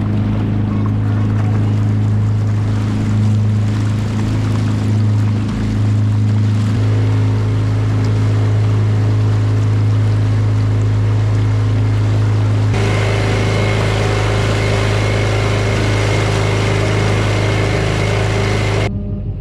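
Small boat's outboard motor running steadily under way, a loud constant hum with water and wind noise over it. The sound shifts abruptly about seven and thirteen seconds in and drops away just before the end.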